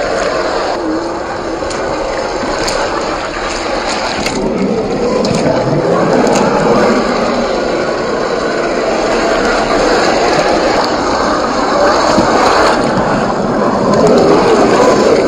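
Radio-controlled 1/10-scale crawler (Axial SCX10 III with a 540-size 35-turn brushed motor) driving through shallow water over rock: the motor and gears whine, rising and falling with the throttle, over splashing water.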